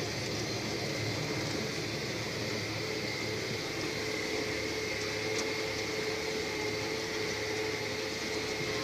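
Tractor engine running steadily while pulling a land-levelling scraper through soil, heard from inside the cab, with a steady whine over the engine noise.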